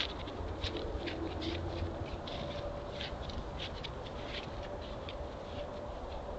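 White-tailed deer walking through leaf litter and patchy frozen snow: irregular light crunches and crackles of hooves, several a second, over the trail camera's steady hiss.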